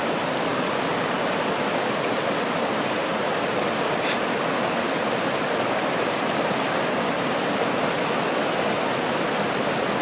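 Rushing stream water: a steady, unbroken rush with no let-up.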